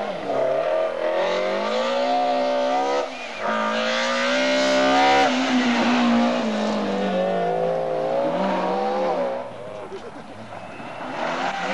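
Rally car engine revving hard under acceleration, pitch climbing, with a break about three seconds in, then climbing again and falling away as the car passes. It fades about ten seconds in before another car is heard near the end.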